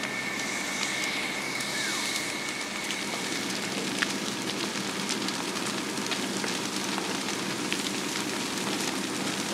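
A building fire burning, a steady rush of flame with scattered crackles and one sharp pop about four seconds in.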